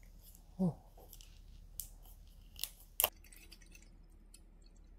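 Plastic screw cap on a bottle of carbonated makgeolli clicking a few times as it is worked open, with a short voiced sound from the woman, falling in pitch, about half a second in. Near the end the makgeolli is poured faintly into a metal bowl.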